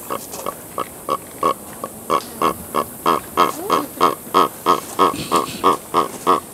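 Crested guan calling with its beak open: a rapid, even series of short honking yelps, about three a second, growing louder toward the end.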